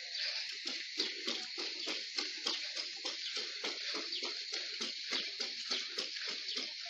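Footsteps on a dirt road: quick, regular scuffs about three a second from people walking, over a steady high hiss.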